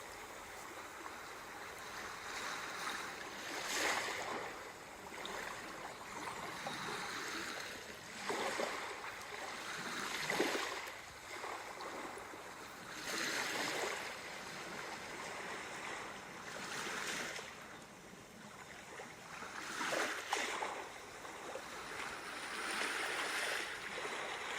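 Sea waves washing onto a shore, the surf swelling and fading every few seconds.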